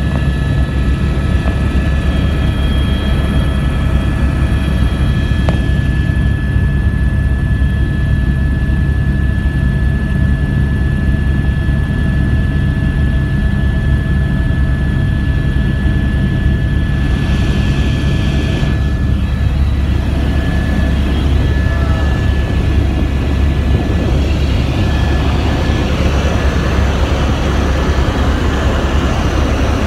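Helicopter in flight heard from inside the cabin: loud, steady rotor and engine noise with a constant high whine. A brief rush of hiss comes a little past halfway.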